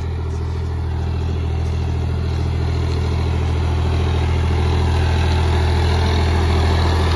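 New Holland 3630 tractor's turbo diesel engine running steadily under load while pulling a heavy disc harrow through wet soil, growing gradually louder as it comes closer.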